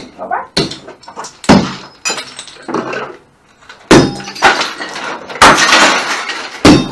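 Glass and crockery being smashed with a hand-held striking tool on a board laid over a barrel: five sharp strikes, each with a crash and tinkle of breaking glass, and a longer stretch of shattering about five and a half seconds in.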